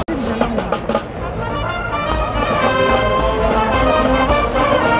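Brass marching band with drums playing a tune, the brass carrying the melody; it comes in after a brief break in the sound just at the start.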